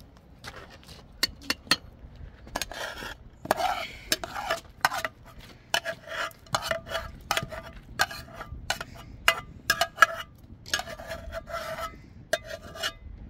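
A utensil scraping and clinking against a metal dish or pot. Sparse clicks come at first, then rubbing strokes, then about two strokes a second, many with a short ringing note.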